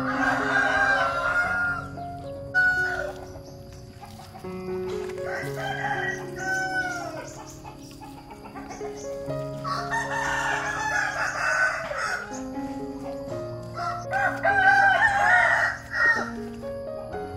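Roosters crowing repeatedly, four drawn-out crows of about two seconds each, over soft background music with slowly changing low notes.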